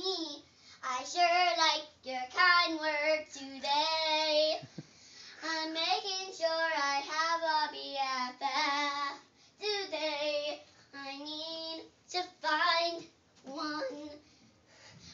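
A young girl singing solo and unaccompanied, improvising a melody in short phrases with a few held notes and brief pauses between them.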